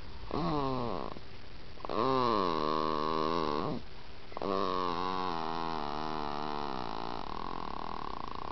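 Snoring: three drawn-out snores, each carrying a wavering pitched tone, with short breaks between them. The last is the longest, about four seconds.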